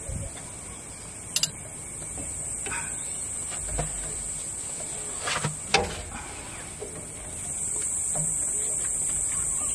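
A spanner clinks a few times on the tail-shaft bolts under a Toyota Land Cruiser, over a steady high drone of insects that grows louder near the end.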